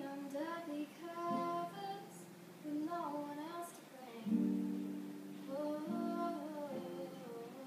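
A young female voice singing a song, accompanied by guitar chords.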